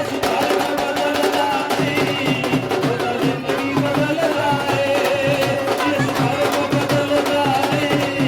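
Instrumental devotional worship music: sustained melody lines over a steady drum beat.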